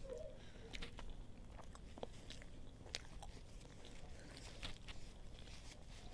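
Close-up chewing of a mouthful of fried pastry: irregular mouth clicks and soft crunches scattered through.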